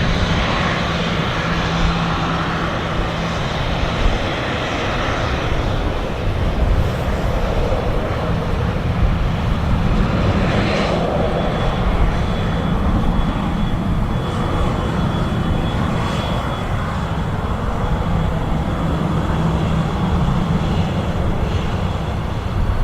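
Jet airliner engines at takeoff power, a loud, steady rushing engine noise throughout, with a faint high whine in the middle.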